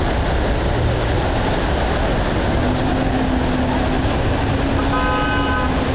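City street traffic at a busy intersection: a steady rumble of car engines and tyres, with a single short car horn honk near the end.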